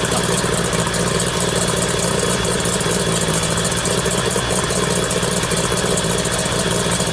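A 50 hp Mercury outboard motor idling steadily with its cowling off. No cooling water is coming out of its tell-tale hole: the water pump isn't moving water, from either a bad pump or a clog.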